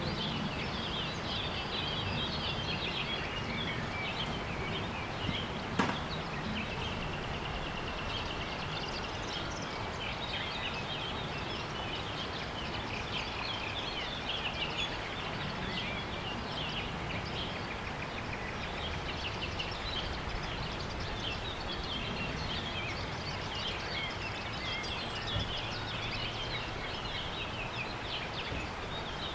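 Outdoor nature ambience: many small birds chirping and twittering throughout, over a steady background noise. A single sharp click comes about six seconds in.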